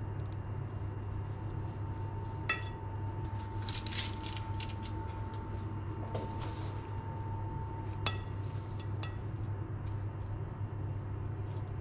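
A skewer and utensils clinking and scraping against a ceramic plate as chicken pieces are pushed off onto rice. There is a ringing clink about two and a half seconds in, a quick run of small clicks around four seconds, and a sharp clink near eight seconds, over a steady low hum.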